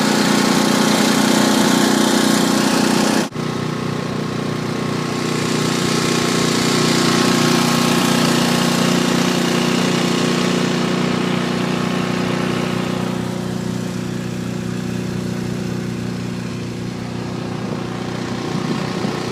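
Ariens Deluxe 30 snow blower's single-cylinder engine running steadily, with a brief break about three seconds in.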